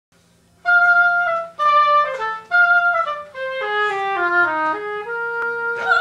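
Oboe playing a short melodic phrase. An opening figure is started three times with short breaks, then a run steps down and back up, ending on a held note.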